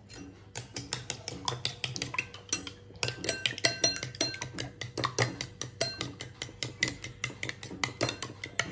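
A metal spoon beating raw egg in a ribbed glass bowl: rapid clinks of the spoon against the glass, several a second, kept up without a break.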